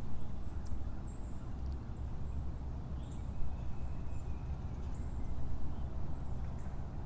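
Outdoor riverside ambience: a steady low rumble, with short high bird chirps every second or two.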